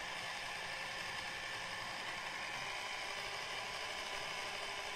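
Small electric motor of a tornado tower toy whirring steadily, spinning the water into a vortex, heard as an even hiss.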